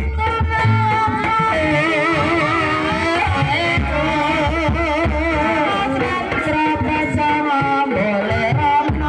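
Live ebeg campursari accompaniment: a singer's wavering, ornamented vocal line over drums and instruments.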